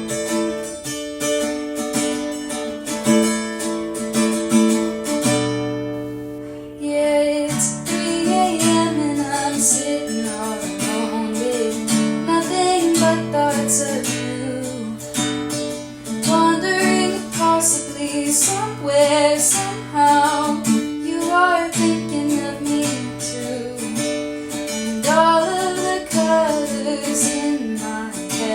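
Acoustic guitar strumming chords in a song's instrumental opening, recorded through a phone microphone.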